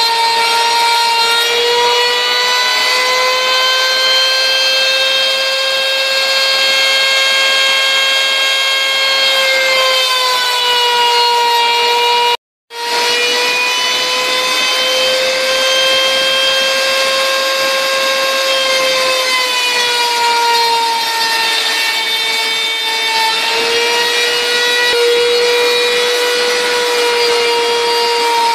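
Router spindle on a homebuilt CNC router running at high speed while cutting, a loud, steady high whine whose pitch sags and recovers a few times as the cutting load changes. The sound drops out completely for a moment about halfway through.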